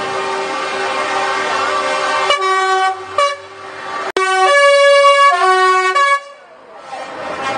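Lorries passing close by with their diesel engines running, then air horns blasting: a short toot a little after two seconds in and a quick second one, then a longer blast about four seconds in that sounds several notes at once and changes notes twice. Engine noise returns near the end.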